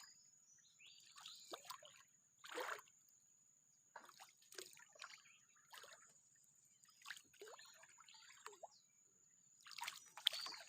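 Small water splashes and drips, about a dozen scattered light sloshes of water around a small boat, the loudest near the end, with a faint steady high-pitched whine throughout.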